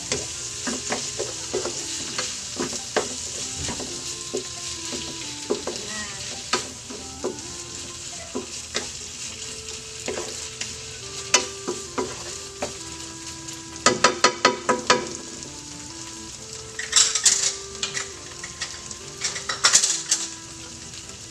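Pork belly and shrimp paste sizzling in a frying pan while a wooden spatula stirs them, scraping and tapping on the pan; a quick run of about eight taps comes around the middle, and two louder clattering bursts near the end.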